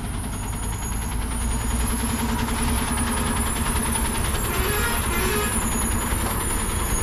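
Diesel engine of a heavily loaded multi-axle lorry running with a deep rumble, growing louder as the truck comes round the bend and passes close by.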